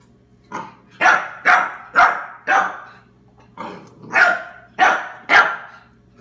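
Young puppy barking: nine short, high yips, five in quick succession, a brief pause, then four more. It is barking at a new chew bone on the floor in front of it.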